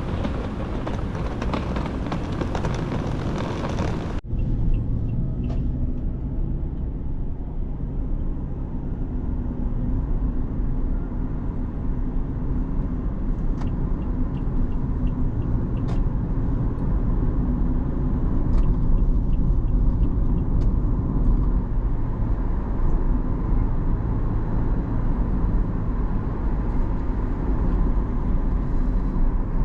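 A car driving on the road: steady engine and tyre rumble. It starts about four seconds in, after a louder rush of wind noise that cuts off suddenly.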